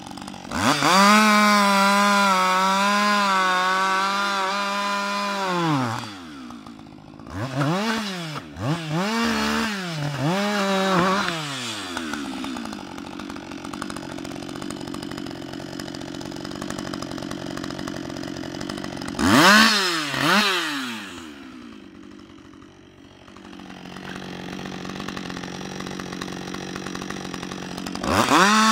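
Husqvarna 560 XP two-stroke chainsaw cutting at full throttle, its pitch wavering under load for about five seconds before dropping to idle. It then gives several quick throttle blips, idles, blips twice more, and goes back up to full revs right at the end.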